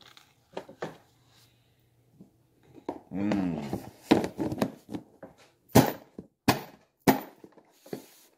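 A person eating close to the microphone: a short hummed voice sound a few seconds in, then mouth noises and a run of sharp clicks, about four in two seconds near the end.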